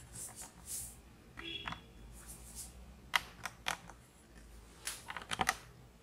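Scattered light clicks, taps and rustles of hands handling things on a workbench, with one sharp click about halfway through and a quick run of clicks near the end.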